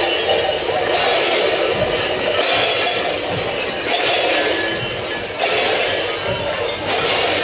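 Many bells (Schellen) on the costumes of Swabian-Alemannic carnival fools, jingling together as the fools hop along in a parade, the jingling swelling and easing in waves about every second.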